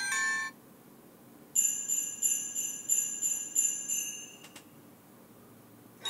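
Amazon Alexa 'Sleigh Bells' doorbell chime playing on a smart speaker: jingling sleigh bells shaken in a steady rhythm, about three shakes a second, for nearly three seconds. At the start the last notes of the previous bell-like chime cut off, and a faint click follows the sleigh bells.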